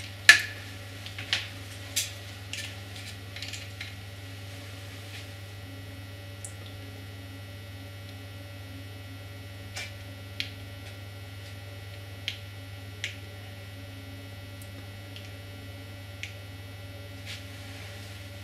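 Small push-buttons on a Futaba GY701 helicopter gyro clicking as they are pressed: several in the first few seconds, then single clicks spaced a second or more apart. A steady low hum runs under them throughout.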